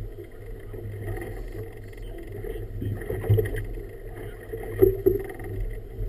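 Water slapping and sloshing against the hull of a small boat drifting on choppy water, over a steady low rumble, with a few louder slaps about three and five seconds in.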